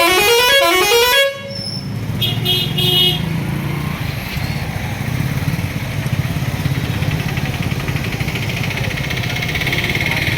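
Vehicle air horn sounding a quick run of rising tones for about a second, then a shorter second blast. The engine runs steadily underneath and is left idling.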